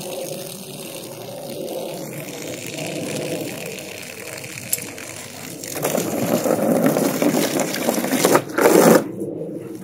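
Garden hose spray nozzle running, a steady hiss of water splashing onto grass and into a plastic kiddie pool. The spray grows louder and heavier for a few seconds about two-thirds of the way through.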